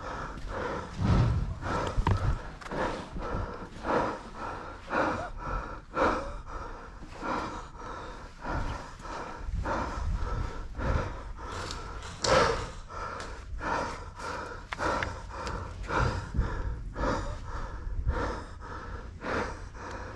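A person breathing hard close to a head-mounted microphone, a steady run of repeated noisy breaths.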